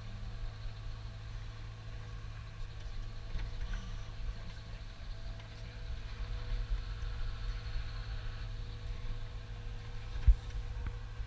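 Forestry forwarder's engine and crane hydraulics running steadily, heard from inside the cab while the crane loads logs. One sharp knock about ten seconds in.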